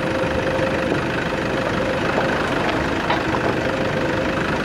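Vehicle engine running steadily at low speed, with a few light knocks and rattles as the vehicle rolls over a rough, rutted dirt road.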